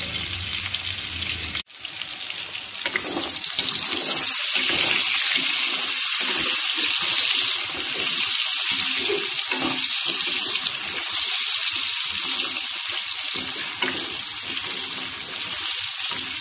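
Chicken chunks sizzling in hot oil over high heat, a steady hiss. The sound drops out for an instant a little under two seconds in, then the sizzle comes back louder.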